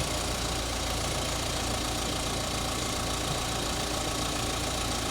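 A vehicle engine idling steadily, a low even hum under a constant hiss.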